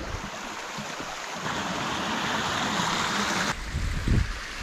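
Shallow stream rushing over rocks, growing louder, then cutting off abruptly about three and a half seconds in. After that come low rumbling thumps on the microphone.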